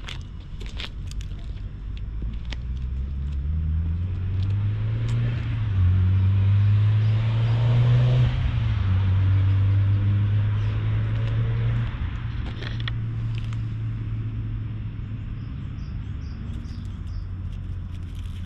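Low engine rumble of a passing motor vehicle, swelling to its loudest from about six to twelve seconds in and then fading off.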